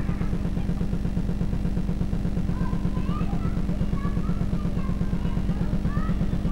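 A steady low electrical buzz with a fast, even pulse runs under the whole recording, typical of an old camcorder soundtrack. Faint high, short calls come and go over it, like a small child's voice.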